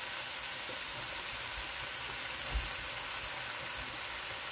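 Diced chicken and vegetables sizzling in a hot pan, a steady hiss, with one soft low thump about two and a half seconds in.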